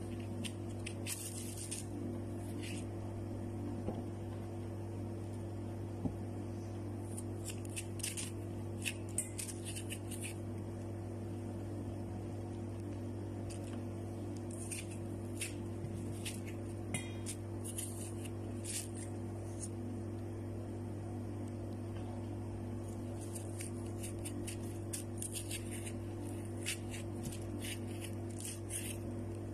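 Seeds and pith being scraped out of halved bitter gourd (ampalaya), heard as clusters of short scratchy strokes every few seconds over a steady low hum.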